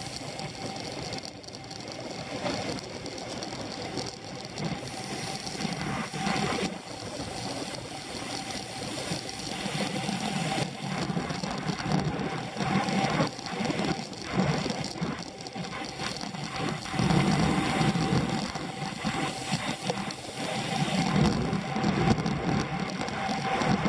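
Riding sounds picked up by a camera on the handlebar of a Scott Foil road bike in a race: wind rushing over the microphone, with a fast mechanical whir and rattle from the drivetrain and tyres. It grows louder in the second half.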